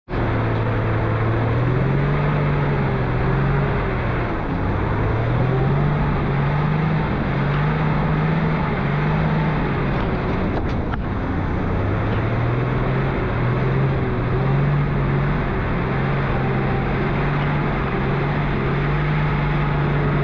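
Four-wheel-drive engine running while driving along a soft sand track, its pitch rising and falling as the revs change, over a steady rush of wind and tyre noise. A single knock about ten and a half seconds in.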